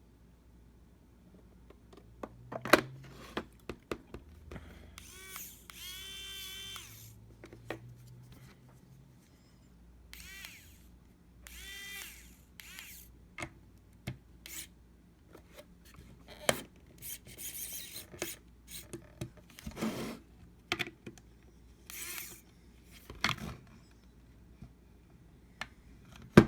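A small 3-volt cordless precision screwdriver's motor whirs in two short bursts, its whine bending as it works a tight screw. Sharp clicks from handling the screwdriver and its bits run between the bursts.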